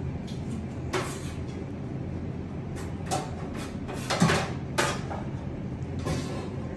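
A metal spoon knocking and scraping about five times while spreading burger sauce, the loudest a little past the middle, over a steady low background rumble.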